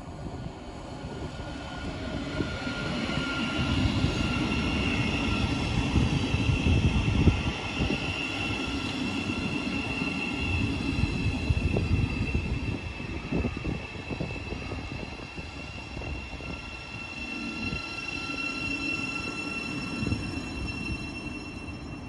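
Thameslink Class 700 electric multiple unit running slowly past along the platform. The low rumble of its wheels and running gear swells about four seconds in, and a steady high whine carries over it.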